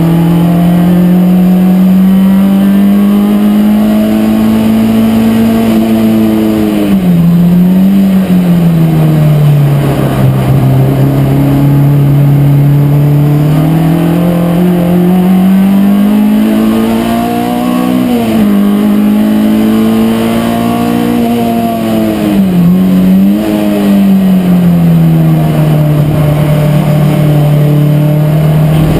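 Race car engine under hard load, heard from inside the stripped cockpit, its note rising slowly with speed and falling back. Three times it drops sharply and jumps back with a quick wiggle in pitch: throttle lifts and blips through gear changes.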